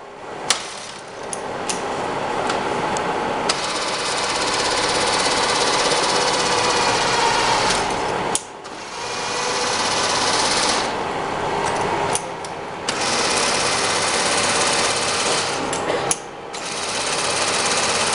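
16K20 screw-cutting lathe running under power: a click as it is switched on, then the spindle and headstock gears spin up to a steady mechanical whir. It dips and picks up again three times, each time with a click of the controls.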